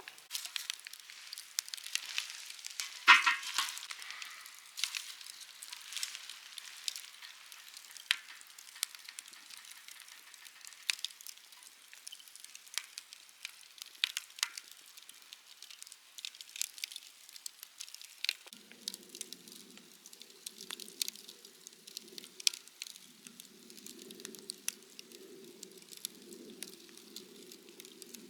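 Wood campfire crackling with frequent sharp pops, one much louder pop about three seconds in. About two-thirds of the way through, a low hum comes in underneath and carries on with short breaks.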